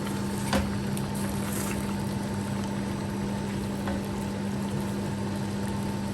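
Chicken in a thick nut-paste masala being stirred in a pot, with a few light clicks of the spoon against the pot over a steady hum and cooking noise.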